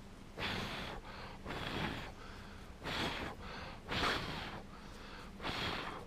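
A man breathing heavily close to the microphone: five loud breaths, about one every second or so.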